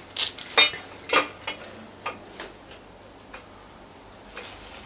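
Irregular light metal clicks and clinks as a stainless steel exhaust header is pushed into a motorcycle's cylinder-head exhaust port and its flange fasteners are started by hand. Most of the clicks fall in the first couple of seconds, with one more near the end.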